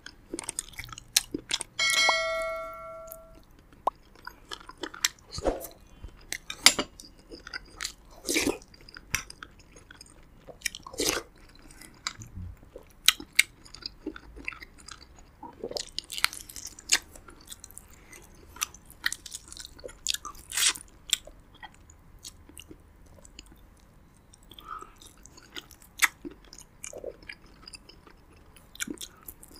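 Close-miked chewing and biting of roasted pigeon and rice eaten by hand, heard as irregular sharp clicks and short smacking strokes. About two seconds in, a bell-like chime rings for over a second and fades.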